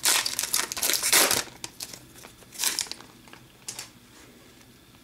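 Foil wrapper of an Upper Deck hockey card pack tearing open and crinkling, loud and continuous for about the first second and a half, then a couple of brief crinkles as it is handled.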